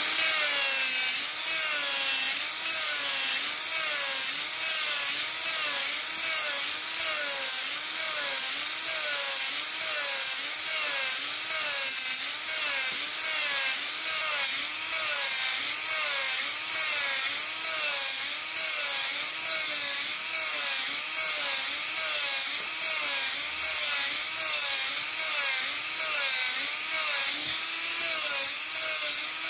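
Angle grinder fitted with a foam-backed sanding disc, sanding a wooden axe handle. The motor's pitch dips and recovers about one and a half times a second as the disc is pressed and stroked along the wood, under a steady rasping hiss.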